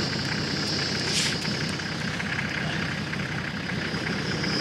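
A vehicle engine idling steadily in the background, giving a low even hum. A thin high hiss sits over it at the start and again near the end, with one sharp click about a second in.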